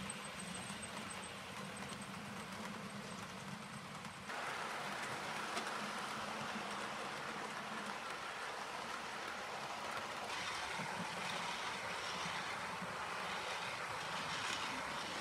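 Model railway train running along the track: a steady rolling and motor noise from the wheels and mechanism, growing louder about four seconds in.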